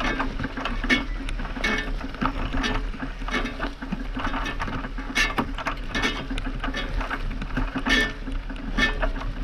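A horse moving at speed: hoofbeats and rattling tack in a steady rhythm of sharp strikes, the strongest a little over once a second with lighter ones between, over a constant low hum, as heard from a camera mounted on the horse.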